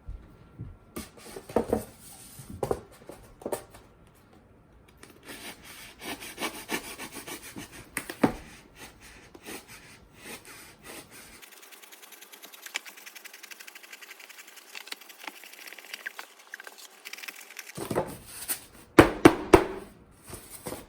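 X-Acto knife sawing through a styrofoam cooler box: irregular rasping, scraping strokes with knocks, the loudest knocks near the end.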